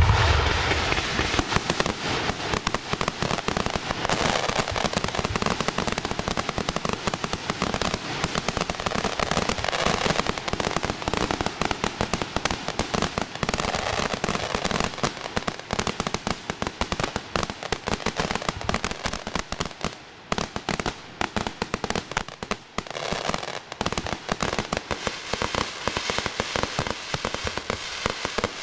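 Fireworks display: a loud bang right at the start, then a dense, unbroken crackling of countless small reports mixed with frequent shell bangs.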